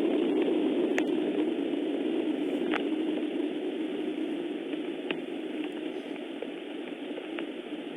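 Steady rain with scattered sharp drop ticks, slowly getting quieter.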